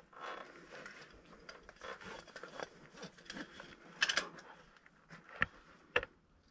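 Rustling and light clicking of a person moving about in caving rope gear, with sharp knocks about four seconds in and twice more near the end.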